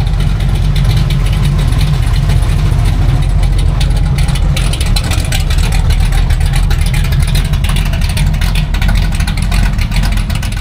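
Classic car engine running loudly, a steady low exhaust rumble with a rough edge, which stops abruptly at the end.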